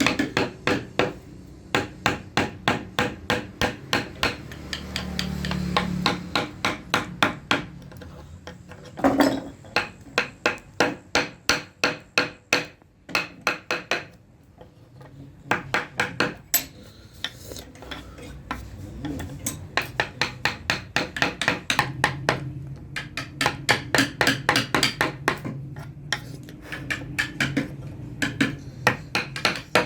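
Mallet tapping a carving chisel into wood: quick, even strikes about three or four a second, with a pause of a few seconds near the middle.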